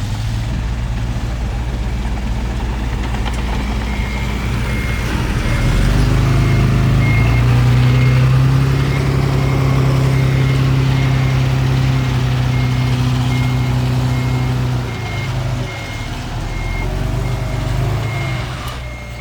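Heavy diesel engine running, picking up to a higher steady speed about six seconds in and easing back near the end, while a reversing alarm beeps at a steady pace from about four seconds in as a machine backs up.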